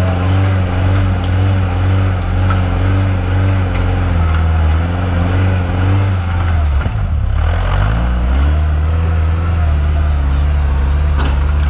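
Off-road buggy's engine running steadily, its pitch dropping about seven seconds in and then climbing back up.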